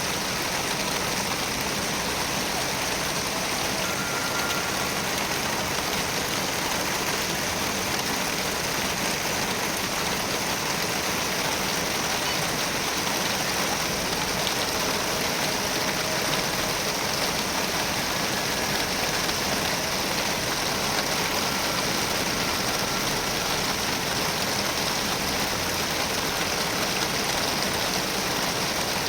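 Heavy rain falling steadily, an even continuous hiss.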